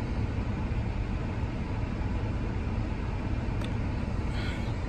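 Steady low road and engine rumble heard inside a moving car's cabin, with a faint click about three and a half seconds in.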